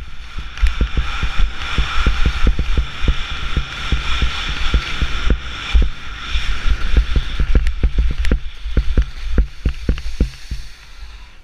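Wind buffeting an action camera's microphone in irregular low thumps while skiing downhill, over the steady hiss of skis sliding on snow. The hiss grows fainter in the second half as the skier nears the lift.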